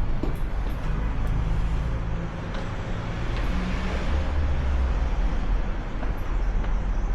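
Road traffic: a motor vehicle's engine rumbling steadily, with a faint haze of street noise over it.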